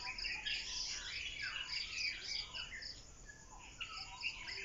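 Birds chirping over an insect's even, rapid chirping of about three pulses a second, which pauses briefly about three seconds in.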